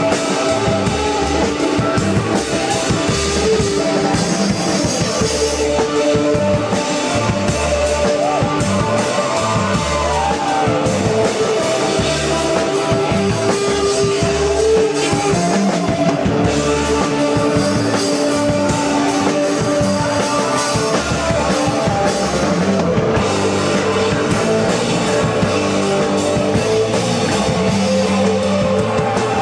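Live rock band playing loudly: amplified electric guitar over a driving drum kit, with singing at times.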